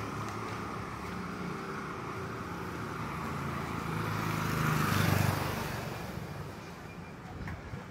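Vehicle engine running steadily on the road. A passing vehicle's noise swells to a peak about five seconds in, then fades away.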